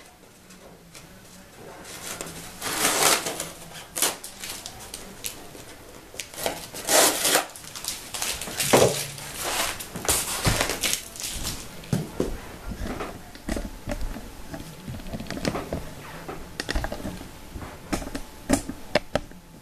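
Polystyrene foam shipping box being handled and opened: bursts of foam scraping and rubbing against foam, with scattered taps and knocks of the box on the table.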